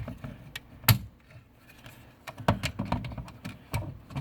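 Irregular sharp clicks and taps of hard plastic: the replacement power-window switch being handled and fitted into its door-trim housing. The loudest click comes about a second in, with a cluster of smaller taps in the second half.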